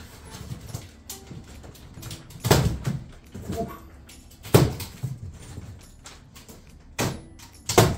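Heavy thumps and knocks on a large cardboard shipping box, with quieter rustling between them. Four loud blows: about two and a half seconds in, about four and a half seconds in, at seven seconds, and just before the end.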